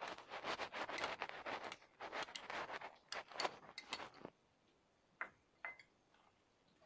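Ground onion paste being scraped off a spoon onto sliced onions in a glass bowl: a quick run of small wet scrapes and clicks for about four seconds, then two light clicks.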